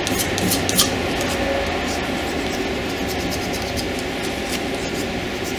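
Razor blade scraping chemically softened gasket residue off an aluminum cylinder head deck, a few light scratchy ticks in the first second, over a steady background hum.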